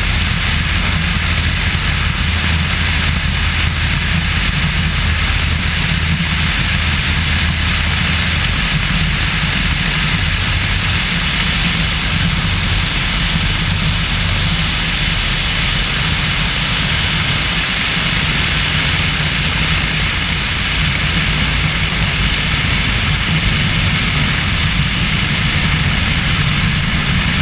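Stearman biplane's radial engine and propeller running, with heavy wind rush over the wing-mounted microphone, through approach, touchdown and rollout on the runway. The engine's low drone changes about eight seconds in.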